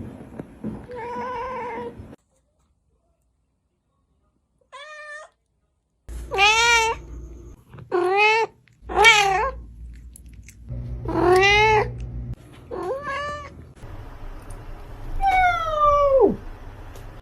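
Domestic cats meowing, about eight separate meows with a short silent break after the first. The last meow is long and slides down in pitch.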